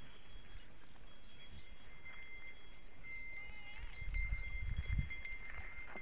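Flock of sheep and goats in scrub, with a faint wavering bleat a little past halfway over steady high-pitched background tones. Low rumbling noise comes in during the second half.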